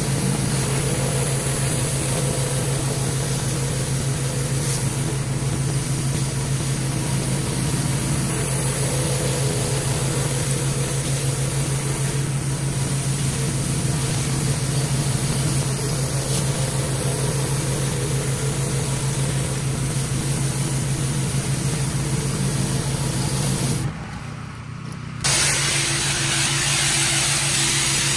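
A pressure washer running steadily, its engine hum under the hiss of water jetting from a spinning surface cleaner onto concrete. Near the end the sound dips briefly, then returns as the sharper, brighter hiss of a spray wand rinsing the concrete.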